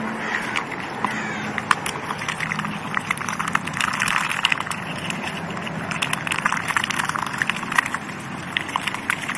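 Two white domestic ducks dabbling their bills in a half watermelon, a dense run of rapid wet clicks and smacks as they gobble the flesh.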